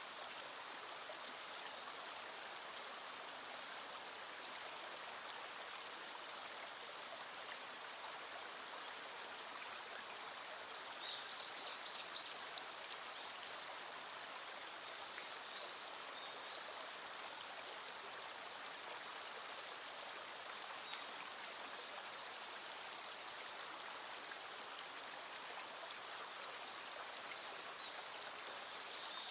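Small stream flowing steadily over stones, an even rushing of water. Short high chirps come in about eleven seconds in and again at the very end.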